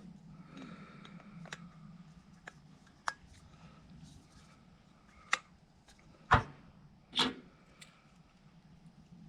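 Handling of camp gear: a scatter of short, sharp clicks and knocks, the two loudest about six and seven seconds in, over a steady low hum.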